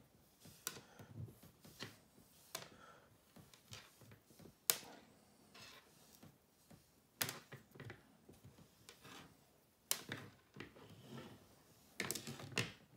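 Hands whipping twine around a rope lead line on a wooden table: faint rustling of rope and twine with irregular sharp clicks a couple of seconds apart, several close together near the end.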